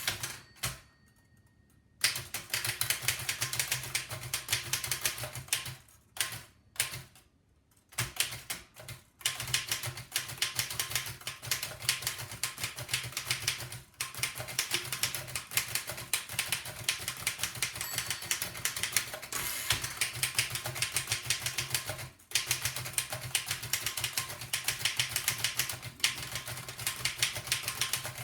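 1905 Fox No. 3 upstrike typewriter being typed at speed: a rapid, continuous clatter of key and typebar strikes. It breaks off briefly near the start and again about six seconds in.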